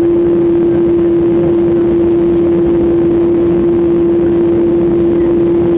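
Steady drone of a parked airliner: one constant hum over an even low rumble.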